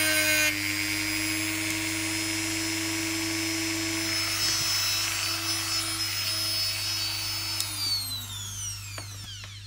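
Hand-held rotary tool with a thin grinding disc running at high speed, grinding away excess diecast metal on a toy car body. Past halfway it is switched off and its whine falls in pitch as it spins down, with a few light clicks at the end.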